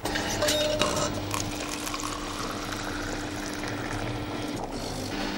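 Coffee vending machine dispensing black coffee into a plastic cup: a few clicks as the button is pressed, then the machine hums steadily while the coffee pours, cutting off near the end.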